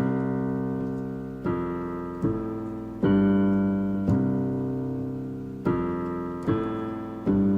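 Music: a keyboard playing slow, sustained chords in a shoegaze song's intro, a new chord struck every one to two seconds and left to fade.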